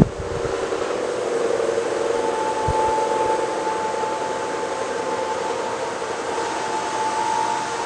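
Ambient drone from a music video's soundtrack played back on speakers: a steady rushing noise, with a held high tone that comes in about two seconds in.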